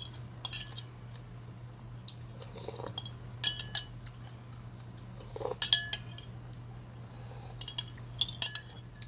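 Metal spoon clinking and scraping against a ceramic bowl in four short clusters about two seconds apart, with soft sips of broth before some of them, as the last of the ramen and rice is scraped from the bottom of the bowl.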